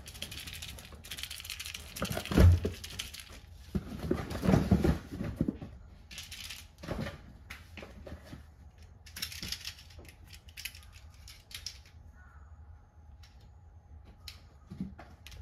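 Cats moving about in open cardboard boxes: paws scrabbling and thumping on cardboard while the box walls rustle and crinkle. It is busiest in the first few seconds, with the loudest knocks about two and a half and four and a half seconds in, and thins out to scattered light taps.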